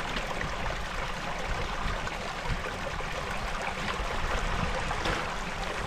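Mountain river water rushing and trickling over rocks, a steady even flow.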